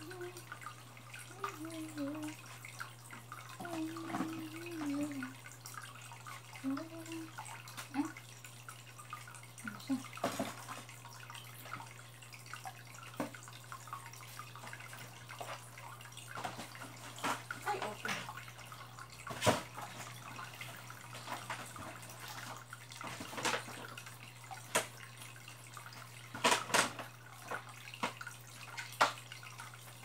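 Water dripping into an aquarium: irregular drips and small splashes, a few of them louder, over a steady low hum.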